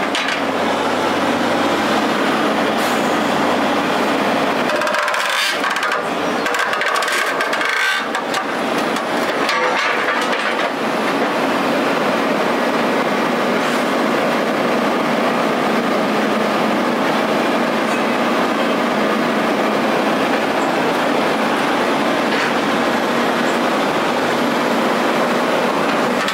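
Heavy machinery running steadily with a loud, even mechanical rumble, broken by a cluster of knocks and clatter a few seconds in.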